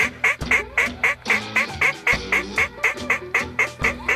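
A rapid, evenly paced run of loud duck quacks, about four a second, each call short and sharp.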